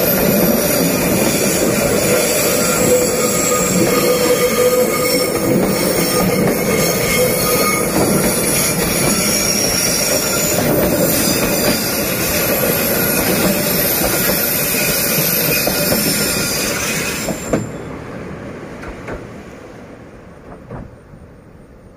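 Passenger train carriages rolling past at close range, the wheels squealing with several high steady tones over the rumble of wheels on rails. About seventeen seconds in the last carriage goes by and the sound fades away.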